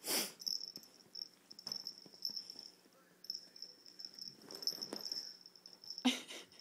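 A puppy and a cat play-fighting on a fabric couch: scuffling and rustling in short noisy bursts, the loudest right at the start and again about six seconds in. A thin high-pitched tone keeps breaking off and coming back underneath.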